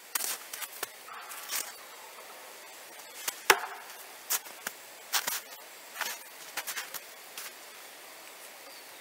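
A thrown KA-BAR combat knife striking a tree trunk with one sharp, hard impact about three and a half seconds in, among a scatter of lighter clicks and crunches.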